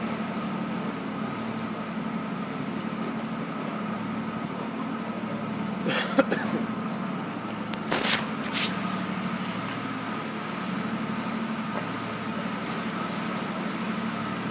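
Catamaran car ferry's engines and machinery running steadily, a constant low hum with a higher whine over it. A few short sharp clatters come about six and eight seconds in.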